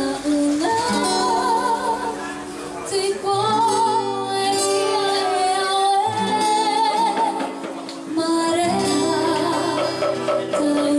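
Live Tahitian song: a woman's voice holding long, wavering notes over lower sustained notes and strummed guitar accompaniment.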